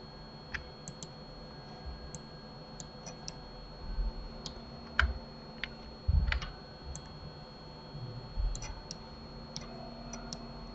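Irregular, scattered clicks of a computer keyboard and mouse, with a few dull thumps near the middle, over a steady faint hum.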